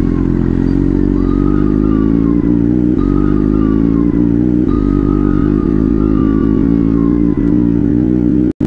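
Superbike engine running steadily at low road speed, a deep even exhaust note that rises slightly in pitch, with faint falling tones coming and going above it. The sound cuts out for a moment near the end.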